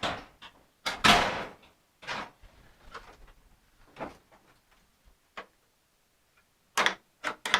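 Scattered knocks and clunks of parts being handled, with one louder, rushing scrape about a second in and a quick run of clicks near the end.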